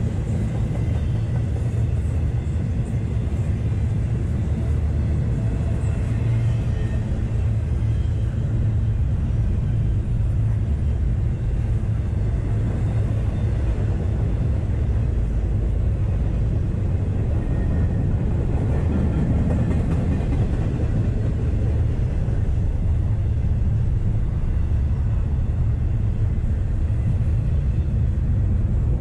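Double-stack intermodal freight train's well cars rolling past close by: a steady low rumble of steel wheels on the rails.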